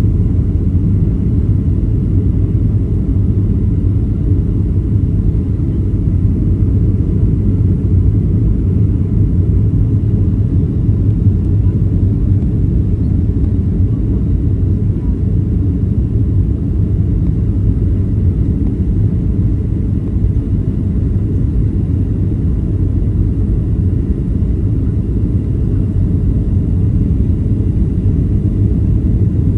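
Cabin noise of a Boeing 737-700 with CFM56 turbofans: a steady, loud, low rumble of engines and airflow through the fuselage, with a few faint steady tones above it.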